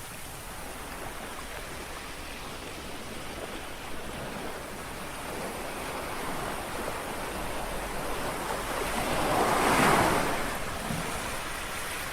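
Small waves lapping on the shore of a calm sea: a steady wash, with one wave building and washing in loudest about ten seconds in, then drawing back.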